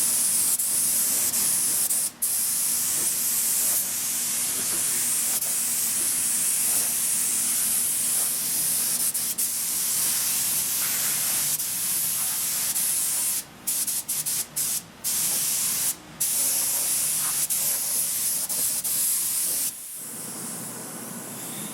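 Compressed-air spray gun spraying primer filler, a steady hiss in long passes. It is briefly cut off about two seconds in and several times in quick succession around fourteen to sixteen seconds, then stops near the end.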